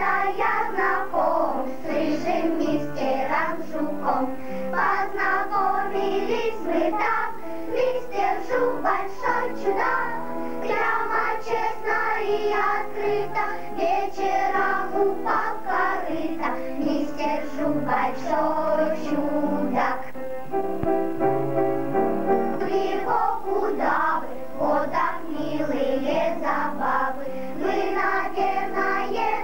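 Children's choir singing a song with instrumental accompaniment. The voices pause briefly about two-thirds of the way through while the accompaniment holds.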